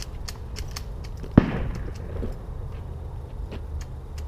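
A single sharp shotgun shot about a second and a half in, over a low steady rumble, with faint scattered clicks.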